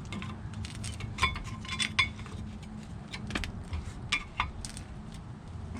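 Metal clinking and scraping as a rear brake caliper and its pads are worked off the rotor, with short ringing clinks about a second in, at two seconds and near four seconds.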